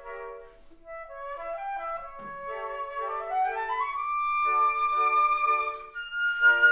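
A quartet of concert flutes playing classical chamber music in harmony: short repeated chords, a brief break, then one flute runs up a rising scale to a long held high note over repeated chords in the other parts, growing louder near the end.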